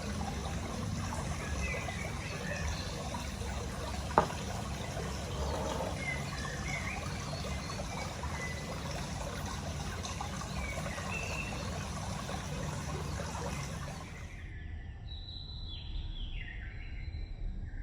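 Steady rushing noise like trickling water, with a few scattered chirps and one sharp click about four seconds in. Near the end the rushing drops away, leaving short falling whistle-like calls.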